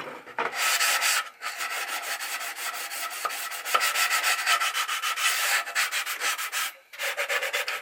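Sanding sponge rubbed by hand over wood in quick back-and-forth strokes, with a few short pauses.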